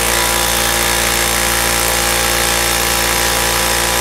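Central Pneumatic 21-gallon, 2.5 hp single-stage air compressor running loud and steady as it pumps up an empty tank.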